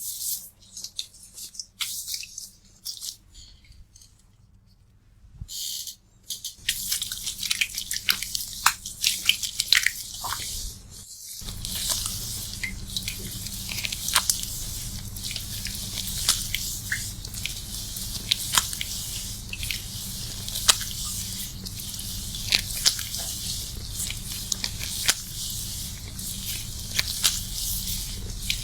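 Lathered wet hair being scrubbed and massaged by hand: soft squishing and crackling of foam with many small clicks. A low steady hum joins abruptly about a third of the way in.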